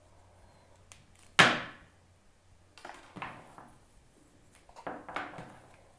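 Knocks and rattles from handling an unboxed power cable and its packaging on a table: one sharp knock about a second and a half in, then two bursts of softer knocks and rustling.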